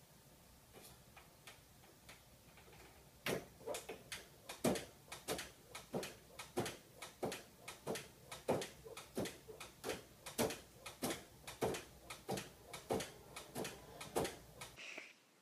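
A cat flap in a door clacking over and over, about two knocks a second, starting a few seconds in.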